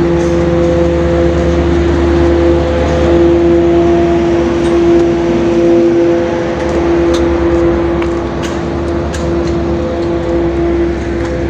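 Steady machinery hum of the ferry MV Alfred on its vehicle deck at berth: a loud drone with two steady tones over a low rumble. A few sharp clicks come about two-thirds of the way through.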